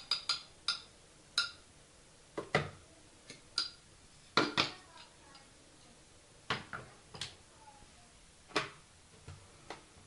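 A metal spoon stirring in a glass cup, with a few quick ringing clinks against the glass near the start. Then scattered knocks and clatters as cups and kitchenware are handled.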